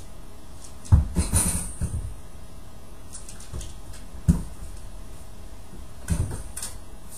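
A few scattered knocks and thumps, about four clusters, from a Pembroke Welsh Corgi moving in and out of a plastic dog crate and bumping it and its wire door.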